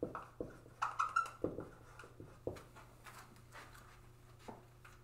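Marker pen writing on a whiteboard: a quick run of short taps and squeaks over the first two or three seconds, then one faint knock near the end, over a steady low hum.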